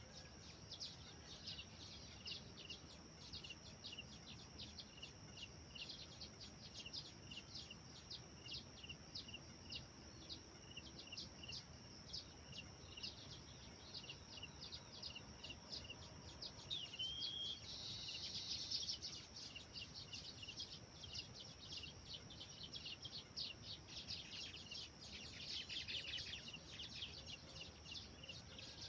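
Small songbirds chirping, short high chirps coming several a second without a break, with louder flurries of chirping about two-thirds of the way through and again near the end, over a steady faint high hiss.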